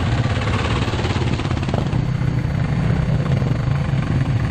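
Single-cylinder enduro dirt bike engine running steadily, a fast stream of firing pulses.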